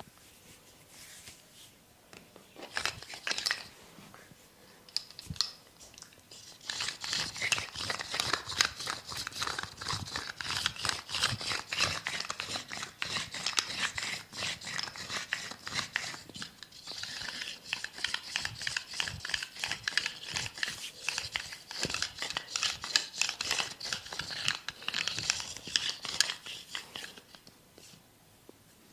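A masseuse's hands rubbing and scratching in a close-miked massage: a dense, crackling rustle. It comes in a short burst a few seconds in, then runs on from about a quarter of the way through until shortly before the end.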